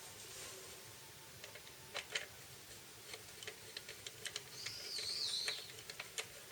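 Scattered light clicks and taps, irregular, with a short wavering high-pitched chirp a little before five seconds in.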